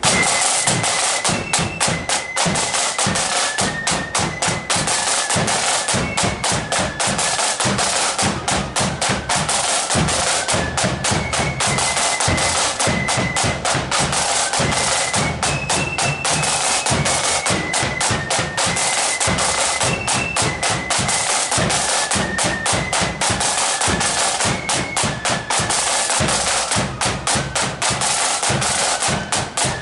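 Marching flute band playing a tune: a high flute melody over busy snare drum rolls and bass drum beats, the drums the loudest part.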